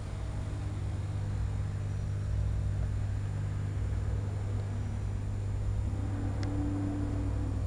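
Steady low hum and rumble with a faint hiss over it, and a single light click about six seconds in.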